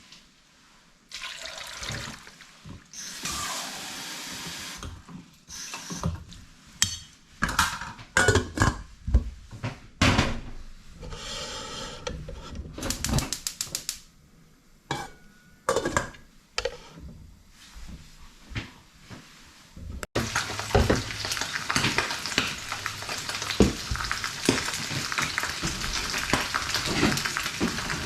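Kitchen sink work: dishes and utensils clattering, with short runs of tap water. About two-thirds of the way through, a steady rush of running water sets in with small knocks over it.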